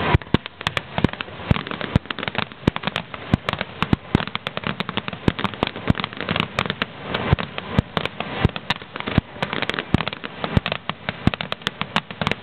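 Fireworks display: a rapid, irregular run of sharp bangs from bursting aerial shells.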